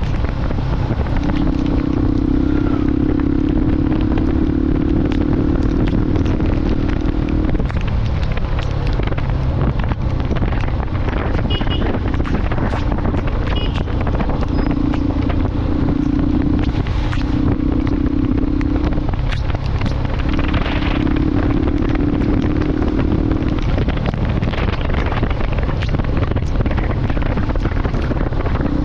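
Motorcycle riding along with its engine running, a steady low note coming and going in stretches of several seconds, over a heavy wind rumble on the microphone.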